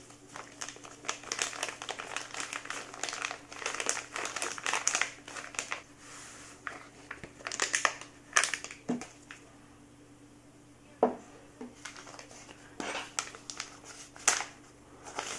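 Paper spice packets crinkling and rustling in the hands as dried dill is shaken out into a plastic measuring cup, in irregular bursts with a quieter stretch and one sharper knock about eleven seconds in.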